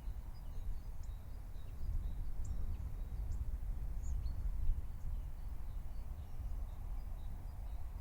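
Outdoor ambience: a steady low wind rumble on the microphone, with faint, scattered bird chirps.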